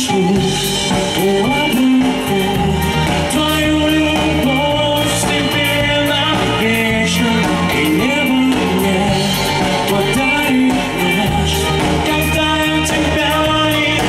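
Live pop-rock band playing through a PA: electric guitar, bass guitar and drum kit, with a male lead singer's voice over them.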